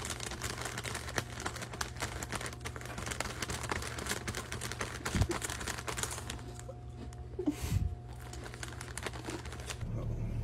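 Plastic packet crinkling as a kitten noses at it: many small, rapid crackles, dense for the first half and sparser later, with a couple of soft bumps.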